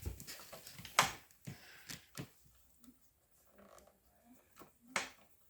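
A few separate clicks and knocks of hands and a tool working on an electric scooter's brake, loosening the adjustment. The loudest is about a second in and another comes near the end.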